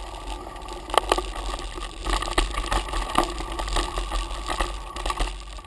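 Mountain bike clattering over rough trail, with a steady rattle and scattered sharp knocks from the frame and parts.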